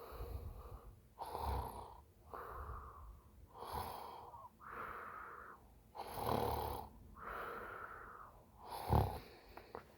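Woman snoring in a deep sleep after a few drinks: a steady run of noisy breaths in and out, each about a second long, with louder snores past the middle and near the end.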